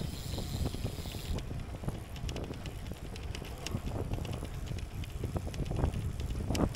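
Bicycle ride: wind rumbles on the microphone, with light, irregular clicking from the bike starting about a second and a half in.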